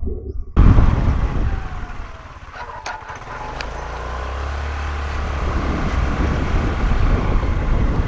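Wind buffeting the microphone over the running of a Honda Activa scooter's engine and tyres on a paved road. It starts suddenly after a moment of silence, eases about two seconds in, then grows louder again.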